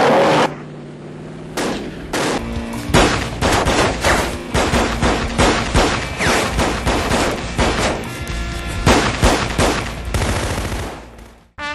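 Heavy gunfire from a film shootout: many shots in quick succession, some overlapping, over background music. It starts about a second and a half in and dies away near the end.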